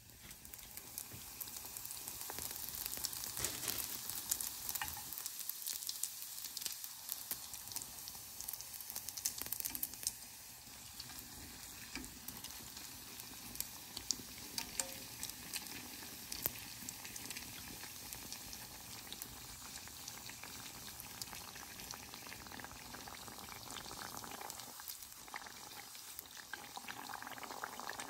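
Food sizzling in hot fat in a pan: a steady crackle of many small pops.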